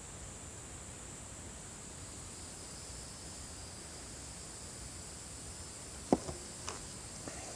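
Faint steady hiss with an even high-pitched drone, then one sharp knock about six seconds in, followed by a few fainter clicks.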